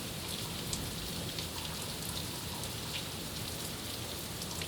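Heavy monsoon rain falling steadily, with many individual drops ticking sharply on an aluminum surface.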